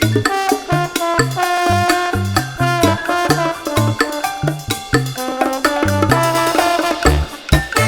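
Upbeat Latin-style background music with a bouncing bass line, percussion and brass-like melody notes.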